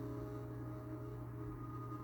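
An iPhone 6s ringtone playing: soft, sustained ringing tones, with a new set of tones starting at the beginning and again near the end, over a steady low hum.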